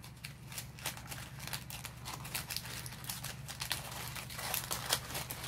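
Crumpled sheet of thin paper softened with lotion being opened up and pulled flat by hand after kneading for momigami: an irregular run of small crinkles and crackles, growing busier toward the end.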